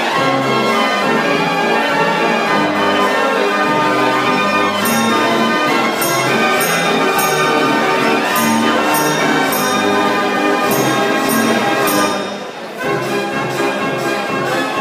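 Dutch street organ (draaiorgel) playing a tune: sustained pipe melody over a pulsing accompaniment and bass. Regular percussion strikes come through the middle, and the music dips briefly about twelve seconds in before carrying on.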